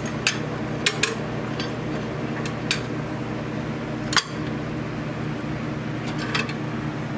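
Metal tools clinking and knocking against a stuck alternator and its mounting bracket as it is worked loose: about six sharp, irregular clinks, the loudest about four seconds in. A steady electric fan hum runs underneath.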